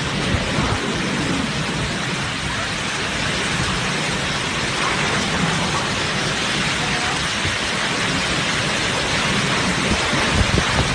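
Heavy rain falling steadily, a dense, even hiss of water.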